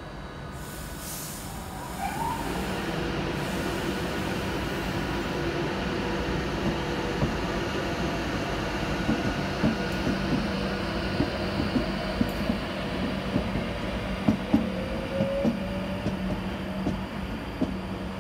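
Class 390 Pendolino electric train moving along the platform, with a steady hum and running noise. From about nine seconds in, the wheels clack over rail joints, and a faint rising whine comes near the end.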